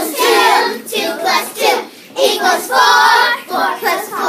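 Children singing together, with loud high voices and some notes held.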